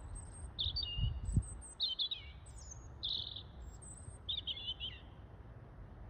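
A small songbird singing: a run of short, high, twittering phrases with brief pauses between them.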